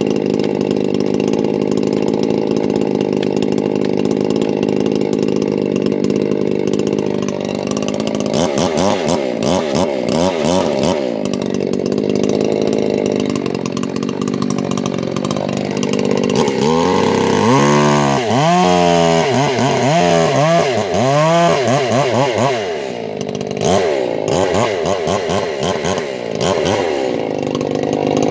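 Two-stroke chainsaw idling steadily, then revved up and down again and again from about eight seconds in as it cuts into a cedar trunk, making the back cut behind the felling notch.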